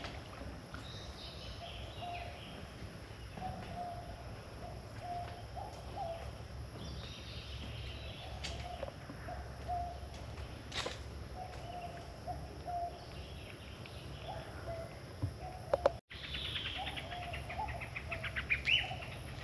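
Birds calling: a short low note repeated again and again, with scattered higher chirps and a rapid ticking trill near the end, over a steady outdoor background hum.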